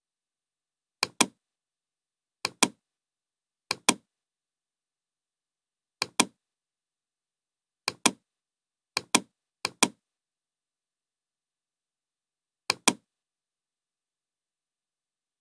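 Computer mouse button clicking eight times at uneven intervals, each click a quick press-and-release pair of ticks.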